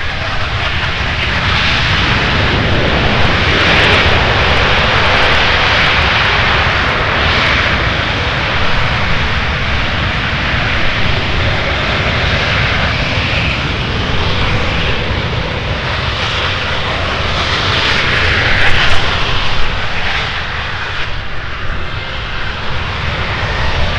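Boeing C-17 Globemaster III's four Pratt & Whitney F117 turbofans running as the aircraft rolls along the runway close by: a loud, steady jet noise that swells a little about four seconds in and again near the end.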